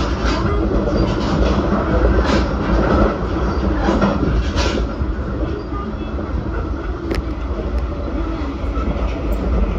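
JR Central 383-series limited express electric train running along the line: a steady rumble of wheels on rail, with a few sharp clacks from the track.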